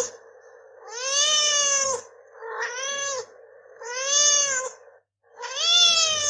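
A cat meowing four times, each meow drawn out and arching up then down in pitch, the third one shorter, with short pauses between and the last running on past the end.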